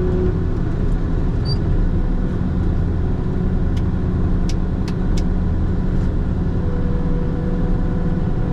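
Diesel engine of a heavy farm machine running steadily, heard from inside the cab. A few sharp clicks come about four to six seconds in.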